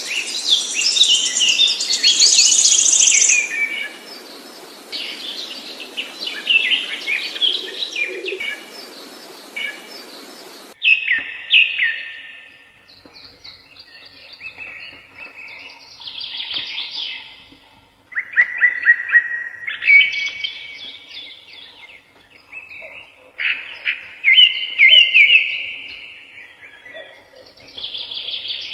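Songbirds singing: a busy chorus of chirps and trills over a background hiss, which cuts off abruptly about a third of the way in. After that, clear phrases of bird song come one after another with short pauses between them.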